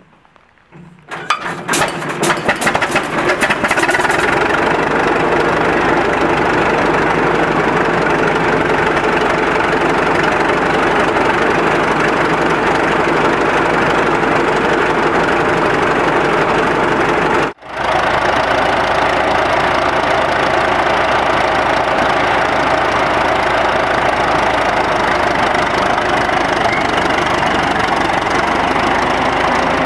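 1924 Best Model 60 crawler tractor's four-cylinder engine starting about a second in, firing unevenly for a few seconds, then settling into a loud, steady run. The sound breaks off briefly a little past halfway and the engine runs on.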